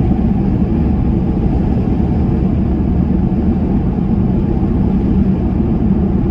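Ford Ranger pickup cruising at a steady speed on big tyres, engine and road rumble heard from inside the cab. The engine runs evenly after a tune-up that cured a bad misfire.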